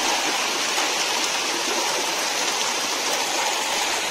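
Steady rush of running water, like a stream or waterfall, that cuts off abruptly at the end.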